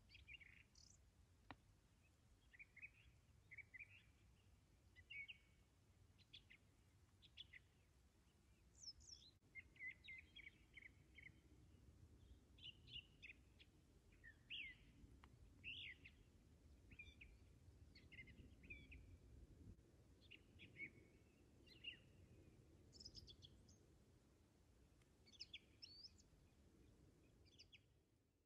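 Wild birds singing and calling, faint: a run of short chirps and whistled phrases from several birds, over a faint low background rumble.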